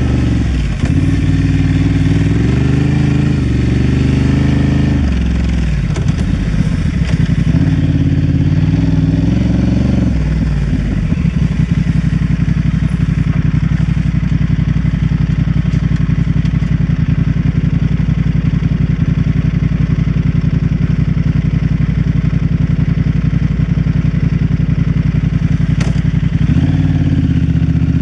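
Honda Transalp XL750's parallel-twin engine running under way on a trail ride, the revs stepping up and down during the first ten seconds or so, then holding a steady low beat for most of the rest before climbing again near the end.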